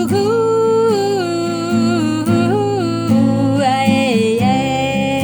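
A single voice humming a slow melody of long held notes over a strummed acoustic guitar.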